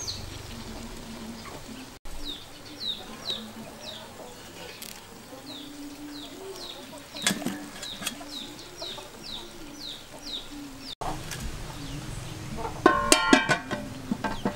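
A small bird repeats a short, high, falling chirp about twice a second. A metal fork clinks against the steel pot and tray, with a loud cluster of ringing clinks near the end.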